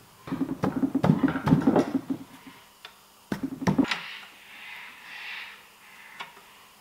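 Cast-iron end cap of an old three-phase electric motor being seated against the motor housing: a run of rapid metal knocks and rattles, a second shorter burst, then a softer scraping as a screw is fed into the end cap.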